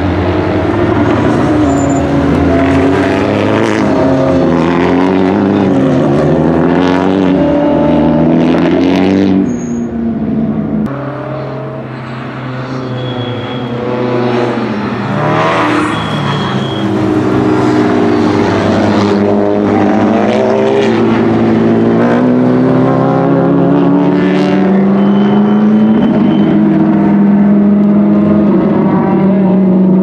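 Several GT and touring race cars passing one after another at speed, their engines revving up and down through gear changes. The sound dips briefly about ten seconds in, then builds again as the next cars come through.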